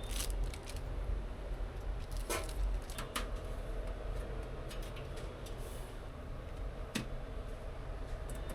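A few short, light clicks and taps over a steady low background hum.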